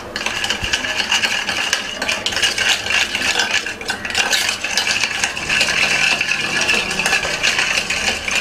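Steel spoon stirring and scraping fast around a small stainless steel bowl, mixing oil with chilli powder and salt: a quick, continuous run of clinks and scrapes with the bowl ringing, stopping at the end.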